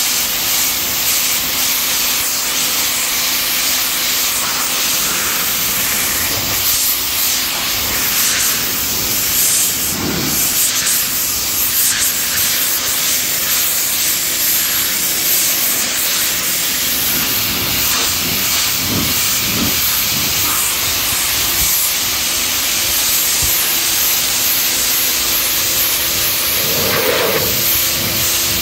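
Harbor Freight 1750 psi electric pressure washer spraying: a steady hiss of the high-pressure water jet hitting SeaDek foam deck padding, with a faint steady hum underneath. The hiss swells briefly a few times as the wand sweeps to new spots.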